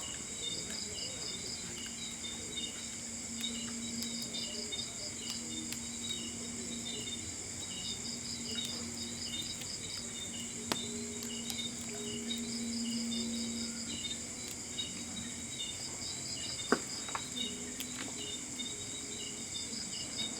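Insects chirping steadily: a continuous high trill with shorter pulsed chirps that come and go every few seconds, with a faint low hum beneath.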